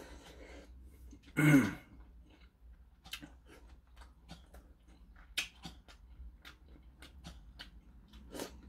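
Close-up eating sounds of ramyeon noodles in kimchi stew: a short slurp at the start, then a loud raspy throat sound falling in pitch about a second and a half in. Small wet chewing and smacking clicks follow, scattered through the rest.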